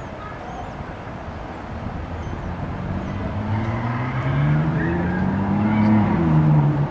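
A motor vehicle engine grows louder and rises in pitch over a few seconds, then drops in pitch near the end.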